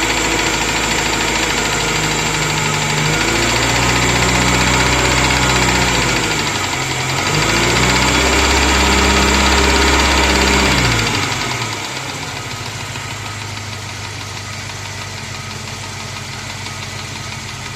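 Moskvich 2140's UZAM four-cylinder engine idling, revved up twice and settling back to idle about two-thirds of the way through. It has the engine knock the owner is recording.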